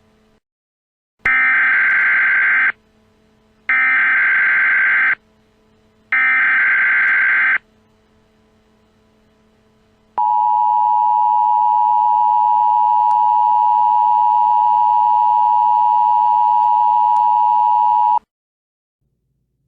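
Emergency Alert System tones: three short screeching data bursts of the EAS header, then the two-tone EAS attention signal held steady for about eight seconds before cutting off. Together they announce the start of an emergency alert broadcast.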